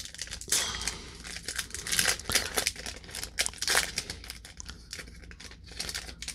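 Crinkling and tearing of a foil trading-card pack wrapper being handled and opened, in irregular rustling strokes.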